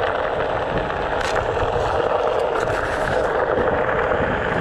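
A Onewheel XR's tyre rolling steadily over a gravel trail, a constant rushing noise.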